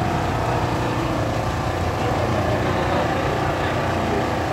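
Steady drone of an engine running.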